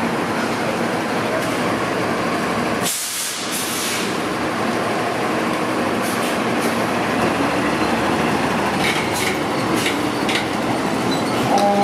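A 2019 Ferrara Igniter fire engine runs loudly as it pulls out of the station bay. About three seconds in there is a short burst of air hiss. A steady pitched tone starts right at the end.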